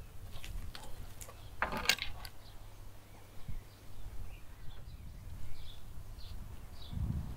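Handling sounds as a large raw turbot is lifted off a wooden board and laid on a bed of salt in a metal tray: a few clicks and a short rustling scrape about two seconds in, then low thuds near the end. Birds chirp faintly in the background through the second half.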